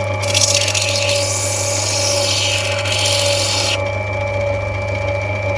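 Lapidary machine running with a steady hum while a piece of opal is pressed against its spinning wheel, giving a hissing grind for about three and a half seconds that then stops as the stone is lifted off; this is the opal being rubbed back, the top of the stone taken down.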